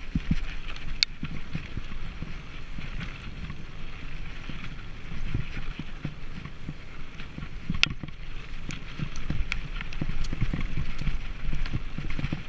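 Mountain bike ridden fast down a dirt forest trail: tyres rolling over dirt and the bike rattling over bumps, with a few sharp clicks or knocks, the clearest about a second in and near eight seconds.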